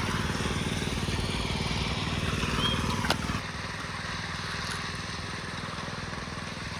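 A small engine on construction equipment running steadily. A sharp click comes about three seconds in, and just after it the engine drops to a lower, quieter level.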